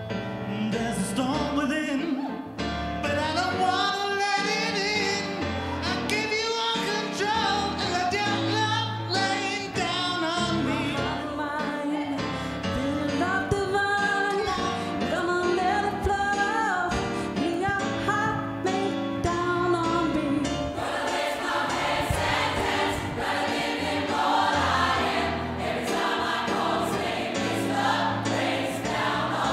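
Gospel choir song: a male and a female lead singer sing over sustained low keyboard notes, and the full choir comes in about two-thirds of the way through, filling out the sound.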